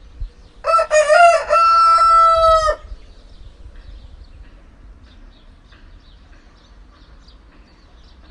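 A rooster crowing once, a single cock-a-doodle-doo of about two seconds that ends on a long held note, followed by faint high chirping.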